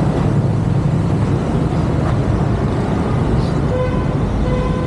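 Motorcycle engine running with steady low rumble and wind noise on the helmet-mounted microphone. A faint steady tone joins in near the end.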